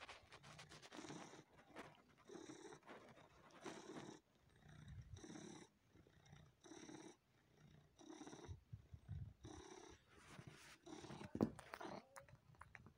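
Domestic cat purring close up in a steady rhythm, about one breath cycle every second and a half, while it suckles on a person's skin, with faint wet sucking clicks and one sharper click about eleven seconds in.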